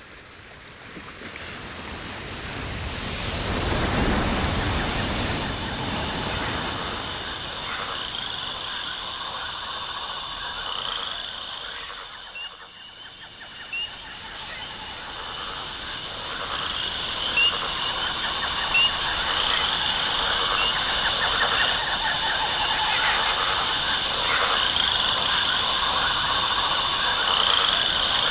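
Jungle ambience: a steady chorus of frogs and insects with short bird chirps, building up gradually. In the first few seconds a broad rush of noise swells and fades, and a few sharp clicks stand out in the middle.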